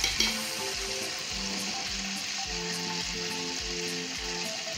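Tomato, yogurt and onion masala paste frying in a pressure cooker, a steady sizzle and bubble, with a single spoon clink at the start as turmeric powder is added. Background music plays underneath.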